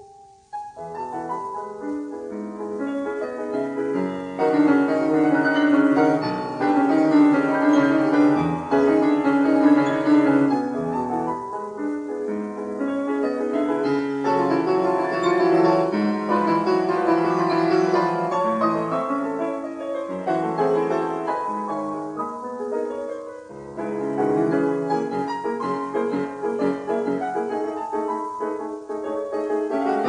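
Classical piano music, with note after note sounding throughout. It pauses briefly just after the start and again about two-thirds of the way in before the playing resumes.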